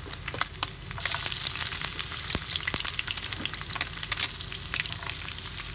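Pork and garlic frying in hot oil in a pan: a steady sizzle with many scattered crackles and pops, louder from about a second in.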